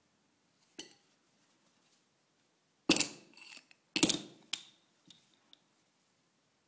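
Nunchaku and other metal-fitted hand weapons being picked up and handled: a few sharp metallic clinks and rattles with brief ringing, the loudest about three and four seconds in, a fainter click near the start and a couple of light ones near the end.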